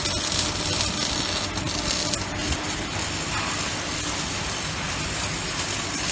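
MIG welding arc hissing and crackling steadily.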